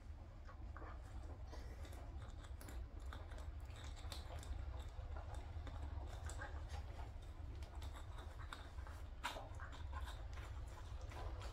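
A puppy gnawing on a hanging chew toy: many small irregular clicks and scrapes of teeth on the toy, one slightly sharper near the end, over a low steady hum.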